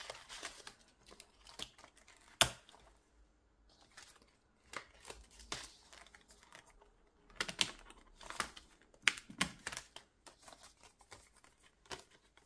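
Laminated cards and plastic sleeves being handled and fitted into a ring binder: scattered taps, clicks and rustles, with one sharp click about two and a half seconds in and a busier flurry of clicks later on.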